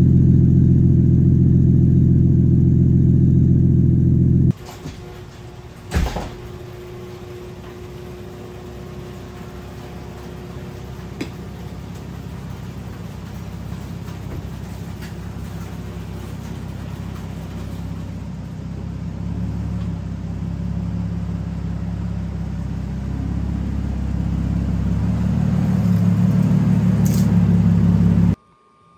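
Chevy Trailblazer EXT exhaust running loud with a steady low rumble, its muffler one the owner suspects is holed and no longer attached. About four and a half seconds in it drops to a much quieter engine sound, with a single knock a second and a half later, that then grows steadily louder until it cuts off just before the end.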